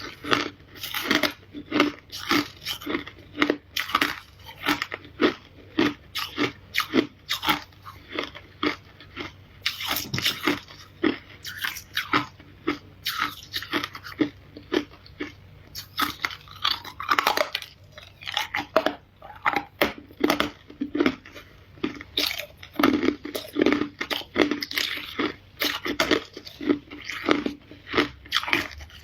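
Close-miked ice being bitten and chewed: a steady, continuous run of sharp crunches, about two to three a second.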